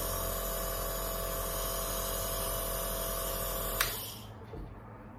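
Home nebulizer running with a steady hum and hiss. A click comes near the four-second mark, and the running sound stops.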